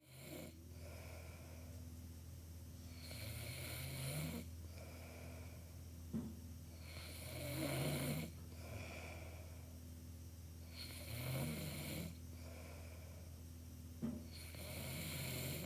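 A person snoring: four long, rattling snores on the in-breath, one about every four seconds, with softer breaths out between them. A steady low hum runs underneath.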